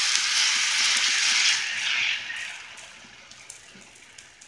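Thin rava dosa batter sizzling loudly as it hits a hot, oiled pan. About two seconds in the sizzle dies down to a much softer hiss with small crackling pops.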